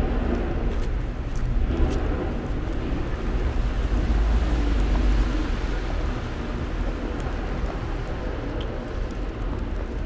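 Low, irregular rumble of wind buffeting the microphone during a snowstorm, over a steady city street noise.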